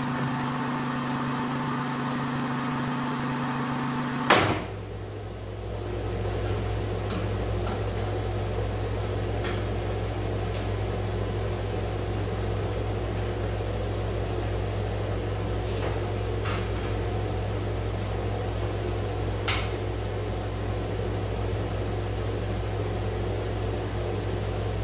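Window air conditioner running with a steady hum. A sharp click about four seconds in, after which the sound turns to a deeper, even drone. A few faint clicks later come from an electrical outlet box being handled.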